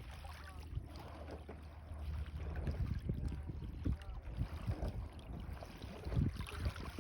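Water splashing and lapping around a canoe on the sea, with irregular short splashes and knocks. A steady low wind rumble sits on the microphone underneath.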